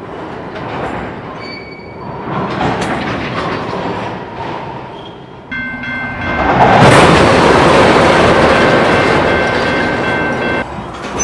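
A freight train of tank cars rolls past with clanks and knocks from coupler slack running in and out between the cars. After about five seconds the rolling gets louder and closer, and a steady high ringing tone from the crossing's warning bell sounds over it for about five seconds.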